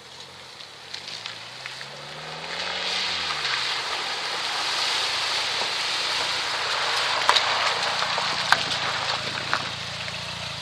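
Peugeot 405 driven over rough wet ground: the engine revs up and eases off in the first few seconds, then a loud steady hiss of tyres and spray on the wet surface builds and holds, with a couple of sharp knocks under the car.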